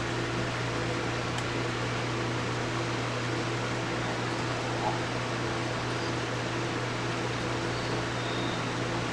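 Steady motor hum with a whirring noise, like a fan running, and a fainter tone that pulses on and off about once a second.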